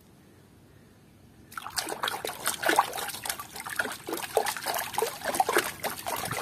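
A hand swishing and sloshing through muddy water in a plastic tub to wash a toy animal figure. It makes irregular splashing and gurgling that starts about a second and a half in.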